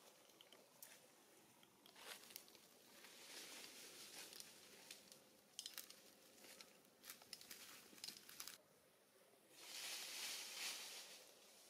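Faint rustling and crinkling of dry leaf litter as macaques move and handle leaves, with scattered light crackles and a longer rustle near the end.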